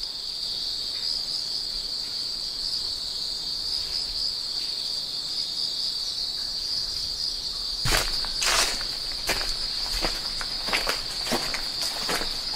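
Steady high-pitched chorus of insects. From about eight seconds in, footsteps sound over it at walking pace.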